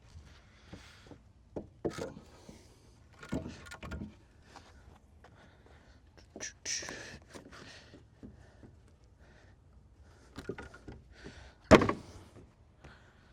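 Scattered knocks and clunks of boards and tools being handled on a wooden shed floor, with one loud thud near the end.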